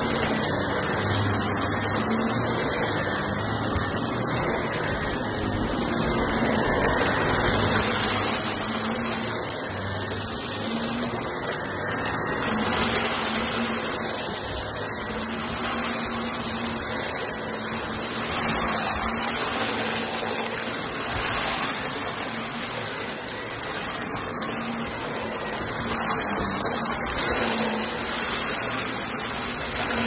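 Shark Navigator upright vacuum running steadily on a rug, its sound swelling and easing every few seconds with the push and pull strokes, with a light crunch of small debris being sucked up.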